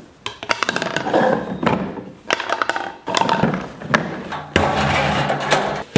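Old chicken feeder being taken apart: a quick run of knocks, taps and clatter, then a steadier noise over the last second and a half.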